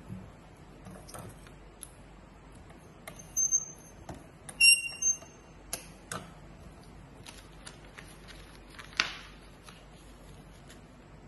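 Origami paper being handled, slid and creased by hand on a glass tabletop: scattered soft rustles and taps, with a brief cluster of short high-pitched tones about halfway through and a sharper tap near the end.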